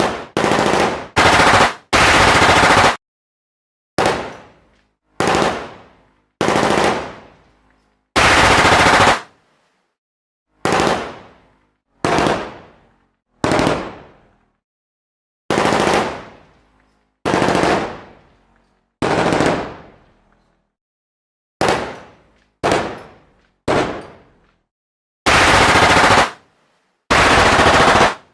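Machine gun firing a string of short, separate bursts of automatic fire with silent gaps between them. Most bursts die away in an echoing tail, while a few longer ones of about a second cut off abruptly.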